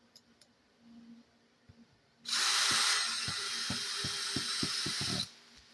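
Cordless power screwdriver whirring for about three seconds as it drives a screw into the truck's plastic chassis, with a run of sharp clicks that come closer together before it stops abruptly.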